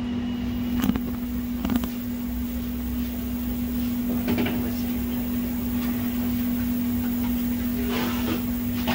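A steady, single-pitched electrical hum with a few light clicks and taps scattered through it.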